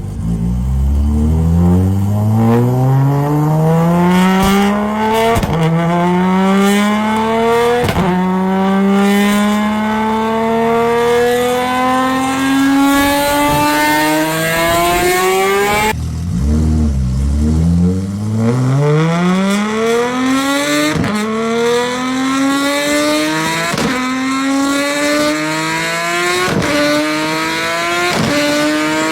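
Toyota Supra Mk4's big-single-turbo 2JZ straight-six accelerating hard through the gears. The pitch climbs on each pull and drops back at each upshift, about every two to three seconds. Roughly halfway through, the sound cuts abruptly and a second run starts from low revs, again climbing through several upshifts.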